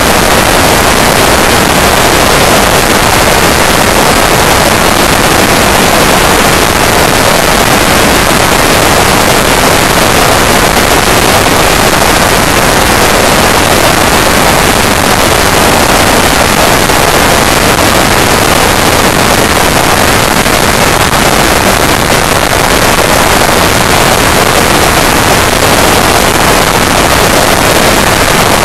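Loud, steady wind rush on the microphone of a camera riding on a motorcycle at motorway speed, with no engine note standing out.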